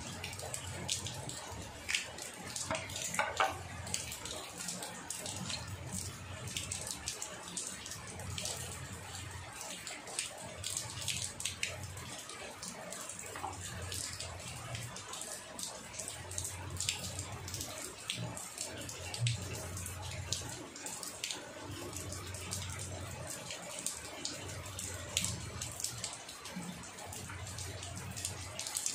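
Knife cutting up a grilled spent hen on a board, making scattered sharp taps and clicks throughout.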